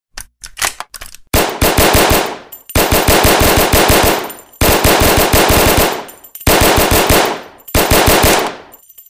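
Thompson submachine gun firing full auto in .45 ACP: a few short bursts, then five long bursts of rapid shots with brief pauses between them, each tailing off.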